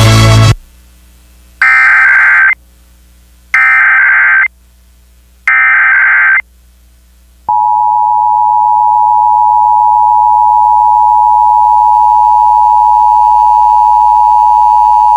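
Music cuts off about half a second in. Then comes an Emergency Alert System activation: three short bursts of SAME header data tones about two seconds apart, followed about seven and a half seconds in by the steady two-tone EAS attention signal (853 and 960 Hz), which opens a required weekly test.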